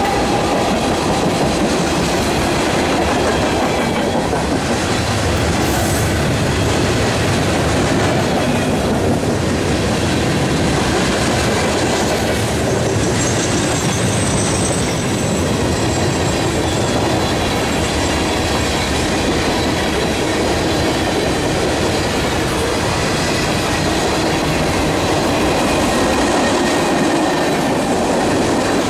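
Train rolling past on the BNSF Chicago Sub, a steady loud rumble of steel wheels on rail with the clickety-clack of wheels over rail joints. Faint high-pitched wheel squeal comes in around the middle.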